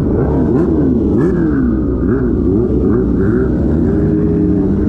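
Several superbike engines revving, their pitch rising and falling over and over in quick, overlapping throttle blips, settling toward a steadier note near the end.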